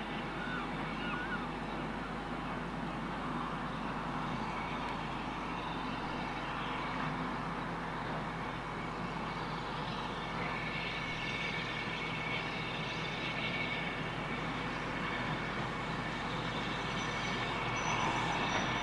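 Diesel shunting locomotive's engine running steadily at a steady drone. Near the end a thin high squeal sets in and the sound grows a little louder as the train starts to move.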